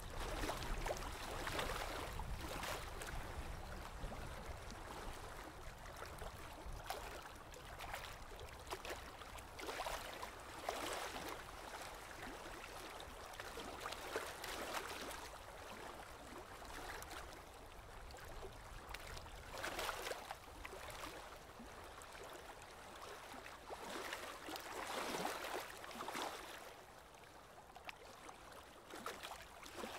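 Water gurgling and trickling in a goldfish aquarium: a continuous rushing noise that swells now and then.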